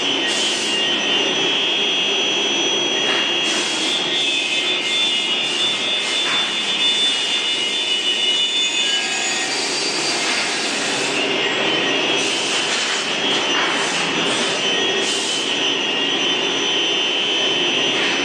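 ATC 1325 CNC router running: a steady high whine over a lower hum, with louder rushing passages coming and going every few seconds.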